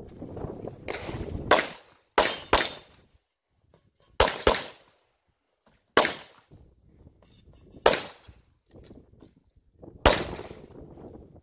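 Handgun shots fired at an IPSC practical-shooting stage: several sharp cracks at irregular spacing, some in quick pairs and some single, each with a short echo.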